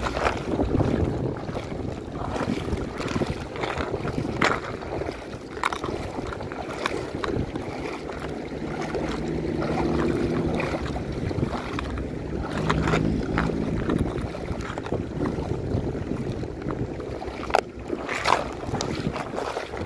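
Wind buffeting the microphone over water moving around a wading angler, with sharp clicks and rattles from a clear plastic lure box being handled, a cluster of them near the end.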